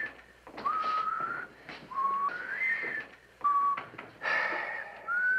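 A man whistling a slow tune through pursed lips: a string of long held notes, some rising, with short breaks between them.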